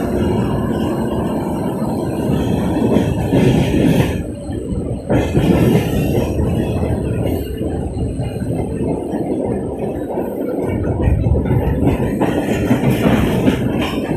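Suburban local train running along the track: a steady, loud rumble of wheels and carriages, with a brief dip in level about four seconds in.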